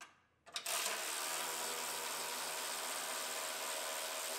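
Cordless electric ratchet spinning a nut off a bumper energy-absorber U-bolt: a couple of clicks about half a second in, then the motor runs steadily.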